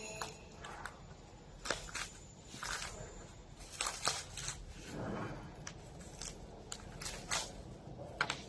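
Scissors snipping through clear plastic wrapping film, with the film crinkling as it is handled: irregular sharp snips throughout and a longer rustle of plastic about five seconds in.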